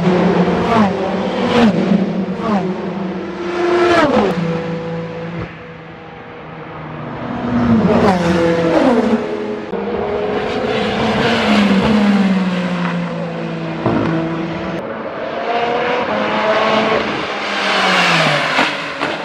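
Endurance race cars, among them a Peugeot 9X8 hypercar with its 2.6-litre twin-turbo V6, passing at speed one after another. Each engine's pitch falls as the car goes by, with several passes and a short lull between two of them.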